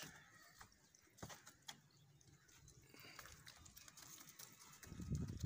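Mostly quiet pen with a few faint clicks and faint thin animal calls. In the last half second an irregular low rumble of wind or handling noise hits the microphone.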